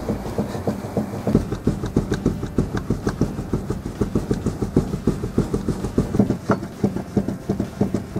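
Worn steering tie rod end on a 2005 Ford Fusion knocking as the front wheel is wobbled back and forth, a quick, even series of knocks several times a second. The play and knock come from the tie rod end's worn-out ball joint.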